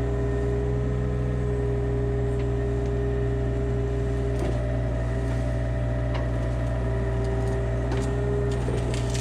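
2004 Hitachi 35U mini excavator's diesel engine running steadily under work, with a constant whine over it and a few short knocks through the second half.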